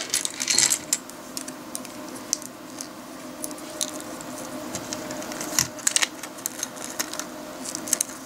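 Plastic LEGO plates and bricks clicking and rattling as they are handled and pressed together by hand: scattered light clicks, with a denser run of them about two thirds of the way through.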